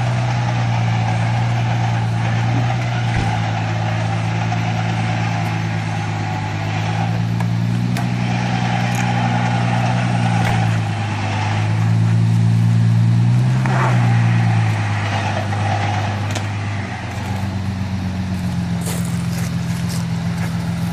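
A four-wheel drive's engine running at low revs, steady with the revs lifting a little in the middle and easing off near the end. A few faint knocks can be heard over it.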